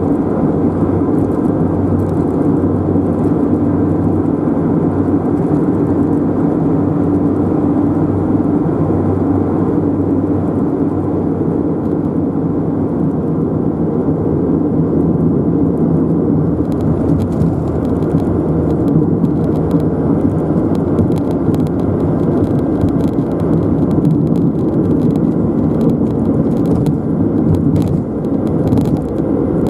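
Steady engine and tyre noise of a car driving along the road, with light clicks and rattles joining in from about halfway.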